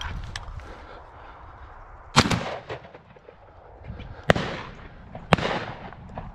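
Shotgun fired three times at flying ducks: a sharp report about two seconds in, another about two seconds later, and a third a second after that, each with a short fading echo.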